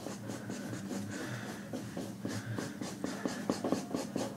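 Marker scribbling on a paper towel: quick, repeated back-and-forth colouring strokes, with a few light taps of the pen tip.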